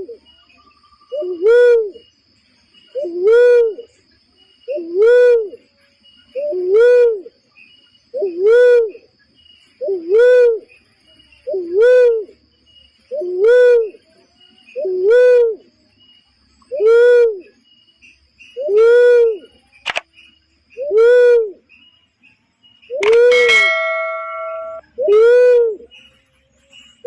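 Barred cuckoo-dove calling: one deep coo that rises and falls in pitch, repeated steadily about every second and a half to two seconds, played as a lure call.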